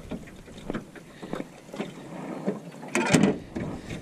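Clear plastic fish-measuring sleeve crinkling and rustling in the hands as a white bass is worked out of it, in a run of irregular crackles with one louder rustle about three seconds in.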